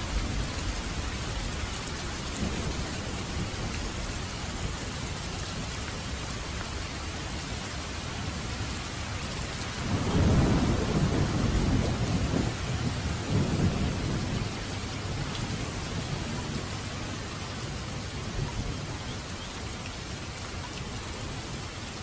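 Steady heavy rain falling. About ten seconds in, a low rumble of thunder swells up and rolls on for four or five seconds before it fades back into the rain.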